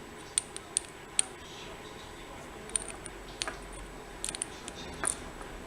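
About ten light, sharp metallic clicks at irregular intervals, with a quick cluster about four seconds in, as the picked core of a Scandinavian oval lock cylinder is eased out with a follower.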